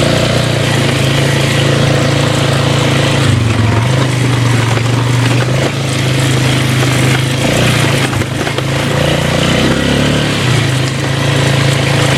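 Four-wheeler (ATV) engine running while being ridden. Its pitch shifts down and up a few times as the throttle changes.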